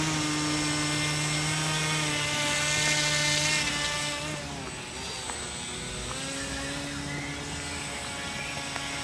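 HobbyKing Swamp Dawg RC airboat's 2300kv brushless outrunner motor and 5.5-inch air propeller running under throttle with a steady high buzz. About five seconds in the pitch dips as the throttle eases, then it holds at a slightly lower pitch.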